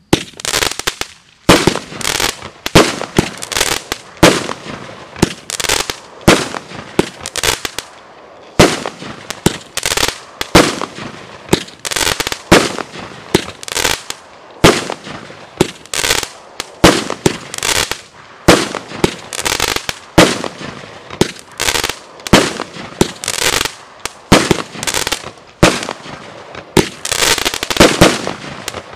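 A 200-gram, 16-shot consumer firework cake firing throughout: crackle mines going off shot after shot, breaking into red-and-white and blue-and-white strobes, a rapid, unbroken string of sharp bangs and crackles, several a second.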